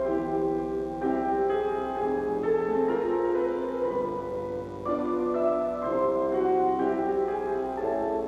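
Slow piano music with held chords that change every second or so, the kind of accompaniment played for a classical ballet class.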